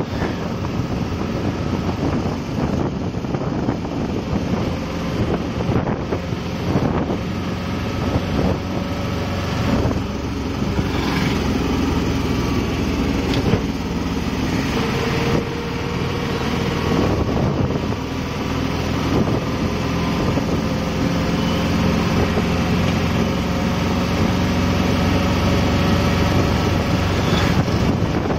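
Auto rickshaw's small engine running steadily at cruising speed, heard from inside the open-sided cab, together with road and wind noise. It gets slightly louder in the last third.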